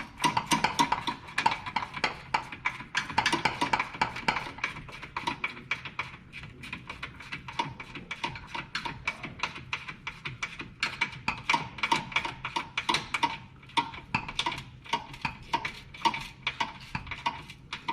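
Background music with a quick, clicky percussive beat and a sustained tone in the first few seconds.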